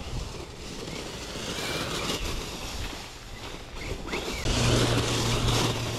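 Losi Lasernut RC rock racer's electric drivetrain whirring as it drives over dry leaf litter, with the tyres rustling through the leaves. It gets louder about four and a half seconds in.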